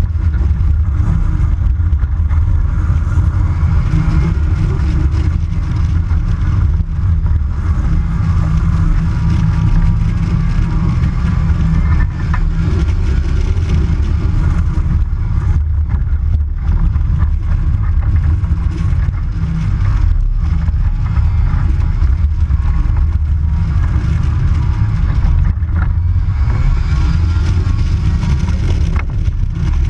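Kitfox light aircraft's engine and propeller running steadily, a loud low rumble, while the plane is on the ground on a sandy creek bed.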